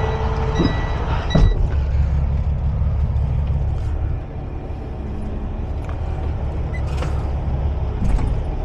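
Semi-truck's diesel engine running at low speed, heard from inside the cab, as the trailer's tandem axles are slid. It eases off about four seconds in, with a sharp knock about a second and a half in and short knocks near the end.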